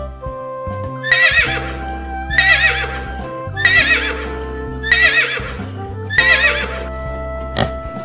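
Horse whinnying: five short, wavering whinnies at even spacing, about one every second and a quarter, over steady background music.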